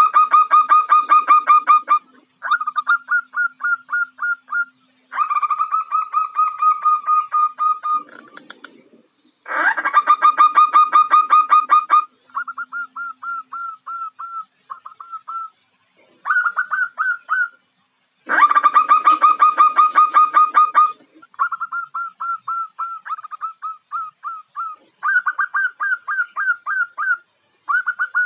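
Female zebra dove (perkutut) giving rapid runs of short pulsed notes, repeated in bouts of one to three seconds with short pauses between, some bouts louder and rougher, others thinner and clipped. It is the female's call to attract a male.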